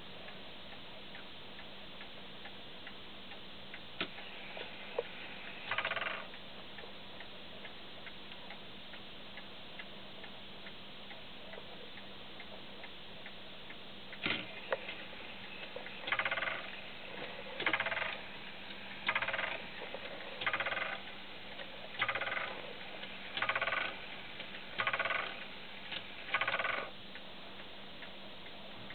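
Comtoise (Morez) clock movement ticking, with a single bell strike about six seconds in. After a sharp click, it strikes eight times on its bell, the blows evenly spaced about a second and a half apart.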